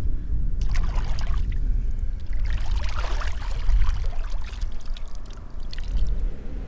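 Water splashing and pouring as a plastic bucket and a sponge are dipped and worked in shallow lake water, in a short burst about a second in and a longer stretch from about two to five seconds in, over a low steady rumble.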